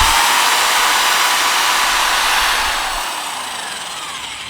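Electric drill spinning an abrasive sanding disc against a plastic headlight lens: a loud, steady sanding hiss over the drill's whine, fading gradually and sliding down in pitch near the end as the drill slows.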